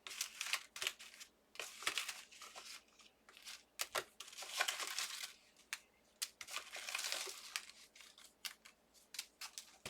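Card stock die cuts being handled and the cut-out bits pushed out of a steel-rule die: irregular paper rustling and crinkling with small clicks.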